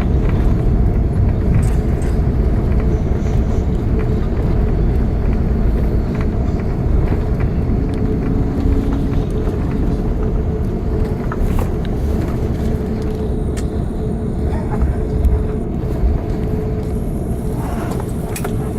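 Cabin noise inside an Airbus A380's upper deck as it rolls out and taxis after landing: a steady low rumble of the engines and wheels, with a faint steady hum and a few light clicks and rattles. It eases off a little toward the end.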